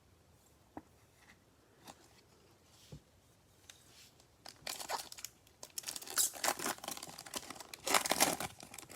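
A trading-card pack wrapper being torn open and crinkled. After a few faint clicks, the crackling starts about halfway through and is loudest near the end.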